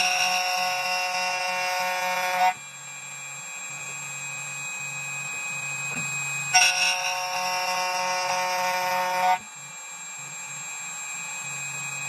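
2M2 Tank 2 Pro CNC key cutting machine milling a key blade: a steady high spindle whine, broken twice by a loud, shrill, ringing screech lasting about three seconds as the cutter bites into the metal, once at the start and again from about six and a half seconds in.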